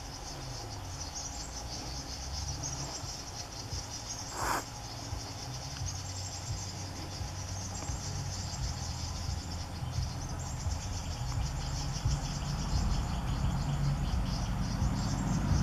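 Forest insects trilling in a dense, high chorus that comes in long stretches, breaking off and starting again. A low hum runs underneath, and a short sharp noise cuts through about four and a half seconds in.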